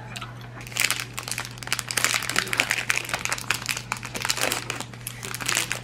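Fingers picking at and crinkling a small wrapper: a dense, irregular run of crinkling crackles that starts about a second in and keeps on.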